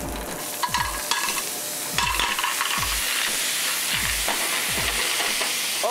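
Clams clattering into a hot sauté pan of fennel, garlic and oil, followed by loud sizzling frying that gets louder about two seconds in.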